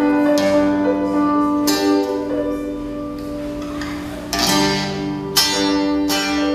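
Live instrumental worship music from a church band: sustained chords, struck afresh a handful of times, with no singing.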